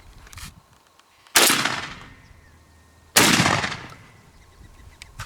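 Shotgun fired twice at a passing dove, two loud close shots a little under two seconds apart, each with a short fading echo.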